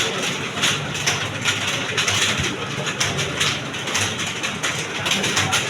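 Many computer keyboards being typed on at once during a typing test: a dense, continuous clatter of key presses.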